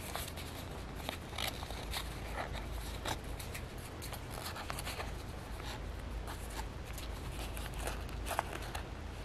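Soft rustling and light scattered clicks of paper pages and binding cord being handled while a junk journal's binding is tightened, over a low steady hum.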